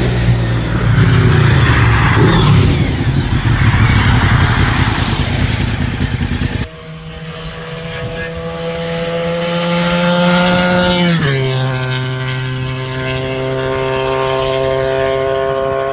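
Honda 750 V4 race bikes passing at speed: a loud, rough engine note with revs rising and falling, then after a sudden change a second bike's V4 holding a steady high note that drops in pitch about eleven seconds in as it goes past.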